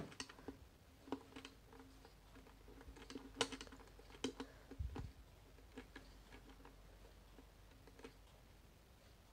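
Faint, irregular light clicks and taps, several close together in the first five seconds and then only a few, over a faint steady hum.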